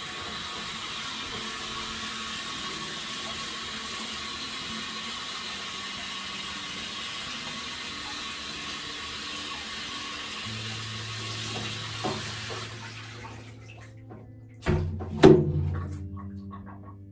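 Handheld shower head spraying water onto a person and the tiled shower in a steady hiss that stops about 13 seconds in. A couple of loud knocks follow near the end.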